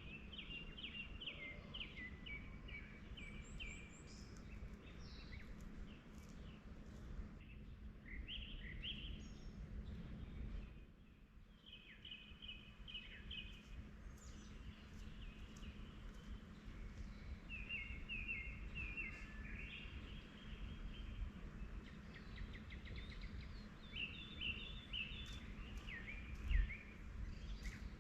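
Forest birds singing in short bouts of rapid, repeated chirps, a new phrase every few seconds, over a steady low background rumble. A single low thump comes near the end.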